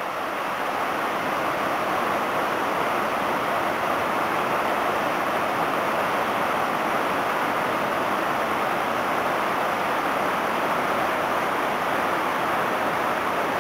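Steady rushing roar of a large waterfall, a heavy volume of water falling about 15 metres into a pool.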